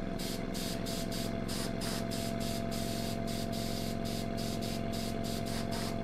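Small airbrush compressor running steadily with a motor hum while compressed air hisses out of the hand-held airbrush in a rapid flutter. The open airbrush keeps the pressure below the compressor's 4-bar automatic cut-off, so the motor stays on.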